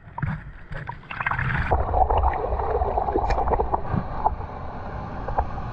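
Ocean water sloshing and splashing around a GoPro at the surface as surf breaks close by, heard through the camera's microphone. It gets louder about two seconds in and then stays steady.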